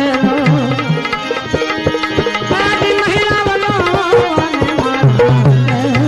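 Devotional bhajan music: tabla playing a steady rhythm, with deep bass-drum strokes that glide in pitch near the end, under a wavering melody line.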